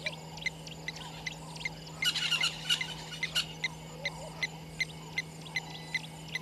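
A bird calling a steady run of short, high, evenly spaced notes, about two and a half a second, with a brief burst of busier high chattering about two seconds in.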